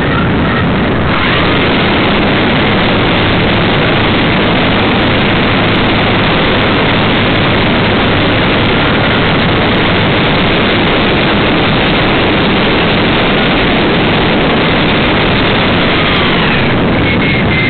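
Onboard sound of a Wilga 2000 airplane in flight: its engine and propeller run steadily under loud wind rush on the fuselage-mounted camera's microphone.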